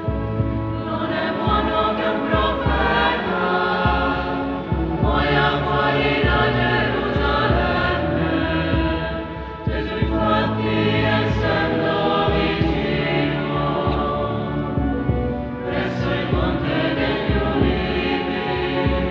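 A choir singing a slow hymn with long held notes, in a large church.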